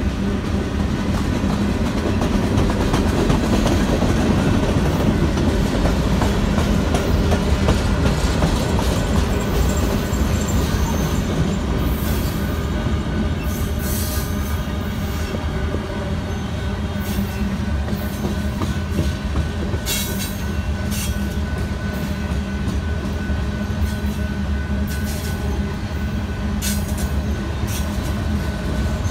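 Freight train of covered hopper cars rolling past: a steady rumble of steel wheels on the rails, with a thin steady squealing tone and short sharp squeals and clicks from the wheels, more frequent in the second half.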